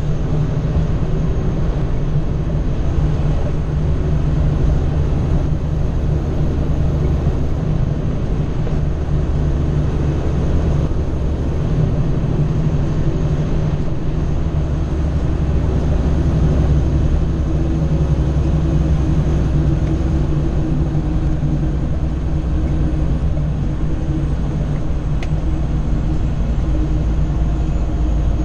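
Cummins ISX diesel engine of a Kenworth W900L tractor running under way, heard inside the cab with road noise. The low engine drone changes a couple of times, about 3 and 14 seconds in, and a faint high whine rises and falls a few times above it.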